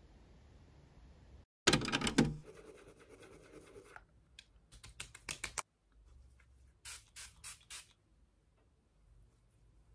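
A loud clatter about two seconds in, then two quick runs of sharp clicks.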